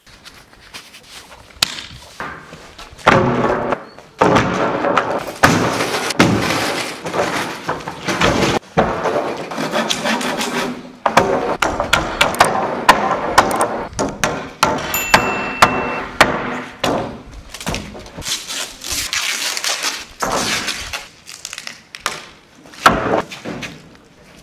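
Hammer blows on nails and long wooden boards knocking and clattering as they are handled and set up, many sharp irregular impacts.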